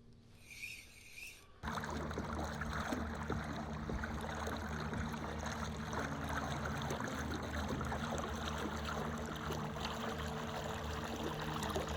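A boat under way on open water: a motor hums steadily over a constant rush and splash of water. The sound cuts in abruptly about a second and a half in.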